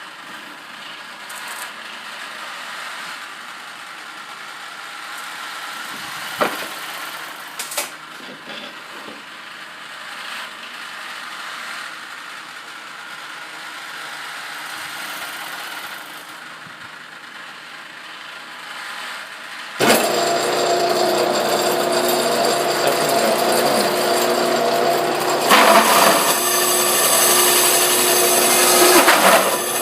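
Bench drill press with a 2 hp motor running steadily with a hum, then about two-thirds of the way in the bit bites into the workpiece and a much louder grinding cutting noise starts, growing louder near the end.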